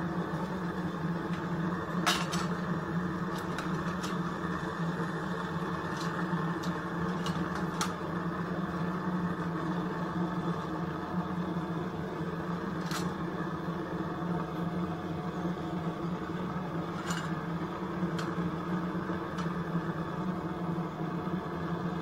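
Gas burner firing steadily into a small coffee-can furnace, a constant rushing noise, with a few sharp metallic clinks as the furnace lid and tongs are handled.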